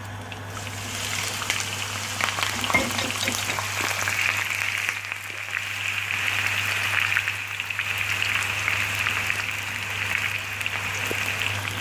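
Onions sizzling and crackling in hot oil in a frying pan, the sizzle building about a second in and then holding steady.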